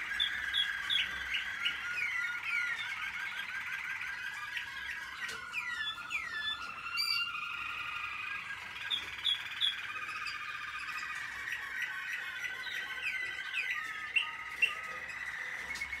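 American Singer canaries singing: a continuous song of rolling trills, warbles and short chirped notes, with two short sharp sounds a little before the end.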